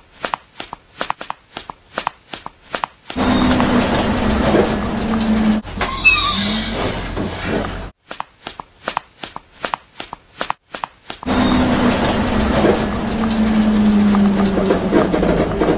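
Sound effect of a large vehicle engine for a toy school bus: a loud rumbling drone with a low hum that sinks slightly in pitch, heard twice. Between the two, and at the start, come stretches of sharp even clicks, about four a second.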